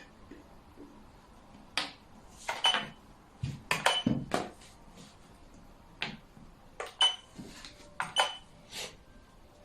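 Xiangqi (Chinese chess) pieces clacked down and slid on the board: about a dozen sharp clacks in irregular clusters, the loudest around the middle.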